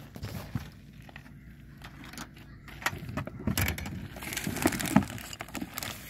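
Handling noise from a hand fiddling with a plastic battery-powered LED camping lantern: scattered clicks and knocks, with a stretch of rustling about halfway through.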